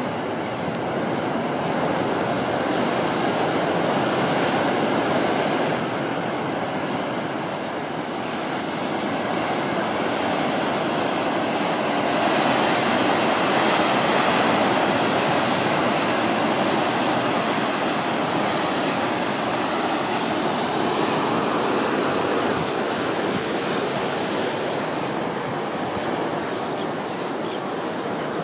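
Heavy ocean surf breaking and churning against rocks, a steady rushing noise that swells louder twice as bigger waves come in.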